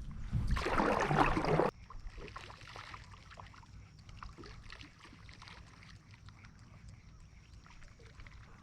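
A loud rushing noise that cuts off suddenly under two seconds in, then faint water lapping against a small boat with scattered light knocks and clicks.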